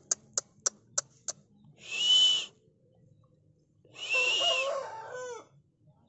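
After a quick run of six sharp claps in the first second and a half, a parrot-beak Aseel rooster gives a short harsh call about two seconds in and a longer crow about four seconds in that falls in pitch at its end.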